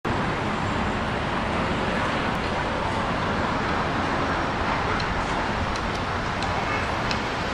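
Steady outdoor street ambience: a constant hiss with low rumble. A few faint, short high ticks come through in the second half.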